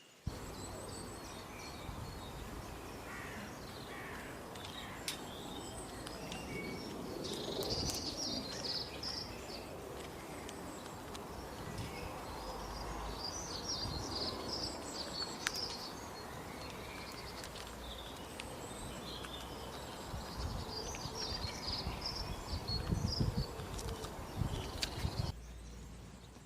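Outdoor nature ambience: birds chirping in several short bursts of high calls over a steady background hiss, with a few sharp ticks.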